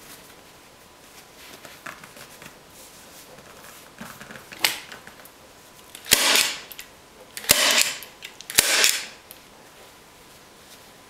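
Hand-squeezed staple gun driving staples through upholstery fabric into a seat's wooden base: three sharp snaps a little over a second apart, each with a brief clatter, after a lighter click and faint fabric handling.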